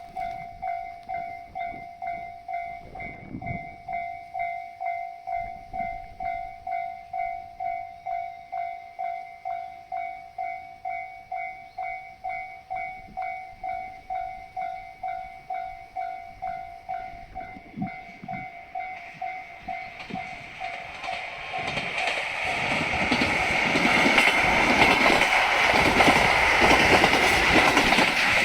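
Railway level crossing warning bell ringing about twice a second. About twenty seconds in, a train arrives and passes over the crossing, its rising rumble and wheel clatter drowning out the bell.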